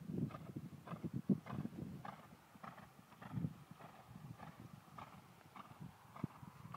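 Ridden horse's hooves cantering on a sand arena surface: a steady run of soft hoofbeats.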